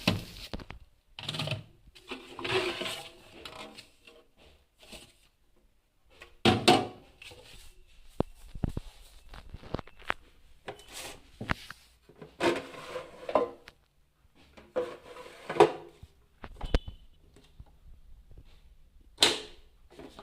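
Plastic fittings of a Samsung double-door refrigerator, such as its movable ice maker tray, being handled and clicked into place: irregular clicks, knocks and rattles with a few louder thuds and short pauses between.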